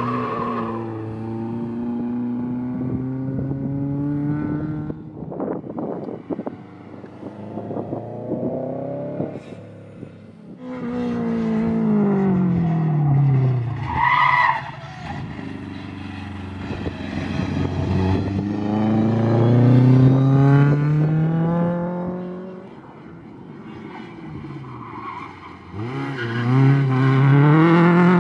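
Rally cars, Lada saloons among them, driven hard past one after another: engines revving up and dropping through gear changes, rising and falling as each car passes. A short tyre squeal about halfway through.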